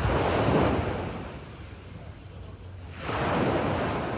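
Sea waves washing onto a beach: two surges of surf, one at the start fading away, another about three seconds in.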